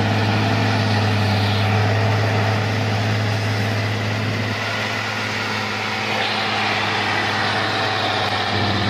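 Heavy log truck's engine running steadily as the loaded truck drives slowly past close by; its low engine note drops about halfway through.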